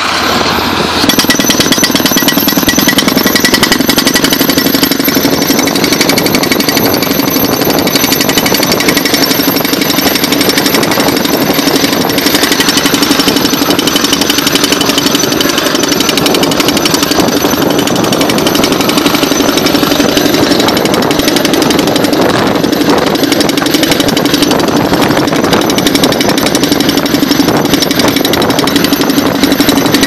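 Down-the-hole air hammer on a tracked pile-driving rig hammering rapidly and continuously as it drills into the ground, driven by compressed air. The hammering steps up about a second in.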